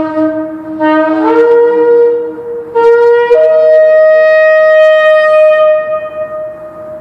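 Two Yemenite shofars blown together in long, overlapping held blasts. A lower note sounds first, the second horn joins a step higher about a second in, and from about three seconds in a higher, clear long blast is held until it fades near the end, echoing in a concrete parking structure.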